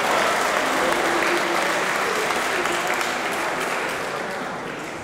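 Crowd applauding and cheering, with a few shouted voices in the mix, dying down over the last second or so.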